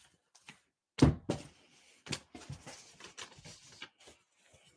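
Handling noise as pieces of cross-stitch fabric are shuffled and picked up. A thump comes about a second in, followed by a run of short knocks and rustles.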